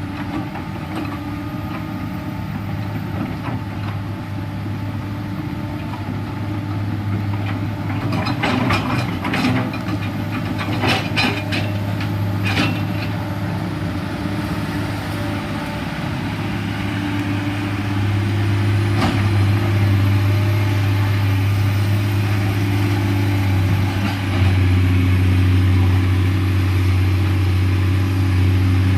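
Komatsu PC210LC hydraulic excavator's six-cylinder diesel engine running steadily under working load, getting louder twice in the second half as it works harder. A quick series of sharp clanks and knocks comes about a third of the way in.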